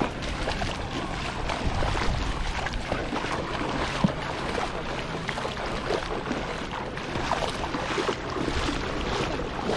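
Beach ambience at the edge of shallow sea water: wind buffeting the microphone over a steady rush, with faint distant voices of bathers and one sharp tap about four seconds in.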